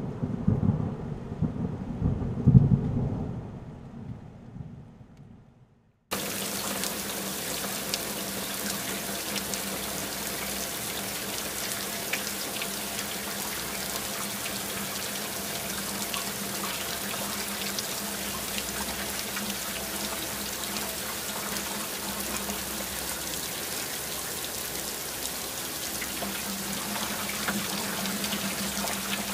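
A loud rumble of thunder that peaks about two and a half seconds in and dies away over the next few seconds. Then a steady hiss of water noise starts suddenly and runs on evenly.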